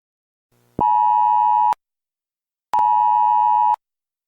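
Emergency Alert System two-tone attention signal sounded in pulses: two steady one-second beeps about a second apart, marking an attack-warning alert.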